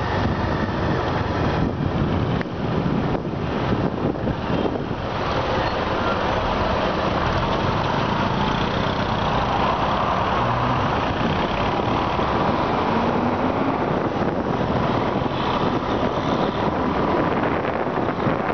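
Motorbike riding in road traffic, heard from on the bike: a steady mix of engine and road noise from the bike and the vehicles around it, with wind buffeting the microphone in the first few seconds.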